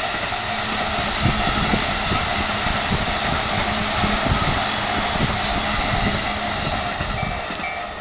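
JR East E233 series electric commuter train passing close at speed: steady rushing noise with wheels knocking over rail joints and a low motor hum. A level-crossing warning bell rings over it in a fast, even repeat.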